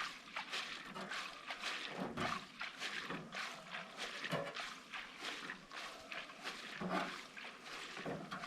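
Water trickling and splashing in an ultrasonic cleaner's tank, with small irregular knocks, as the basket of GPU heat sinks is handled in the dirty cleaning water.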